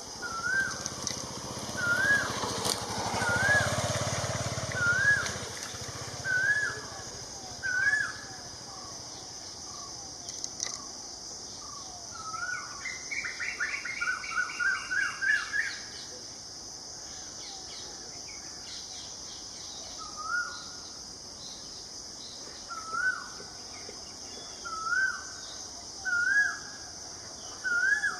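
A bird calling over and over, a short rising note about once a second, with a quicker run of chirps about halfway through, over a steady high hiss.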